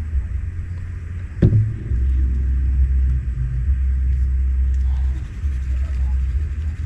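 Steady low rumble that wavers in level, with a single sharp knock about a second and a half in.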